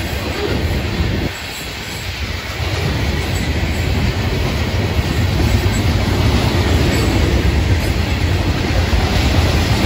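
Freight cars of a Florida East Coast Railway train rolling past: a steady rumble and clatter of steel wheels on the rails, a little louder after about three seconds.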